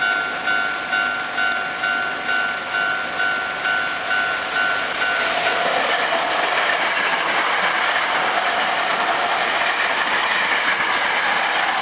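Japanese level-crossing alarm bell ringing in a steady pulse, a little over two rings a second. About five seconds in, a Hankyu 5300 series resistance-controlled electric train begins passing, and its wheel and motor noise swells to cover the bell.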